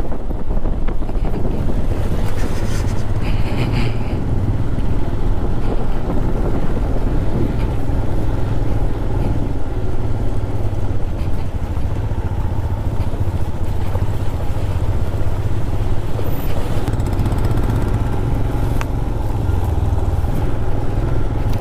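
Royal Enfield Himalayan 411 motorcycle's single-cylinder engine running steadily as the bike is ridden over rough ground, under a heavy, unbroken low rumble.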